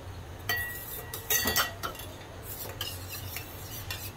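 Metal spoon and small stainless-steel bowl clinking as the bowl of melted butter is picked up and handled. There are two clear clinks, each with a short ring, about half a second and a second and a half in, then lighter taps.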